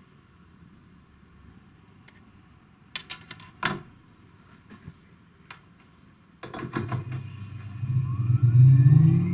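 A few sharp clicks and knocks, then about six and a half seconds in an electric motor starts and spins up a wooden disc set with neodymium magnets, its whine rising in pitch over a steady hum.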